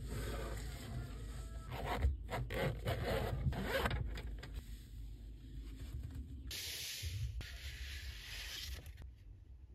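Zipper of a fabric artist brush case pulled open with a raspy run, the cloth rubbing and scraping on the wooden table. About six and a half seconds in, a steady hiss for a couple of seconds as a pad of watercolour paper is handled in its plastic sleeve.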